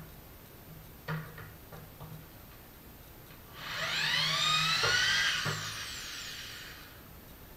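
Handheld power drill run briefly, its pitch rising as it spins up and falling as it winds down, starting about halfway through. A few light clicks and knocks come before and during the run.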